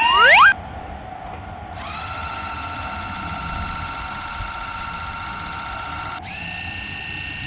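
Electric train's motor whine: a steady hum that starts about two seconds in and holds, then switches to a higher-pitched whine about six seconds in. Loud repeating rising swoops cut off half a second in.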